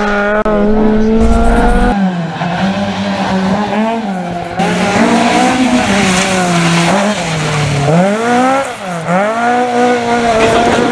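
Ford Escort RS1600 rally car's four-cylinder engine revving hard at full throttle, its pitch climbing and dropping again and again with gear changes and lifts, and two quick dips and rises about eight and nine seconds in. The sound jumps abruptly twice where separate passes are spliced together.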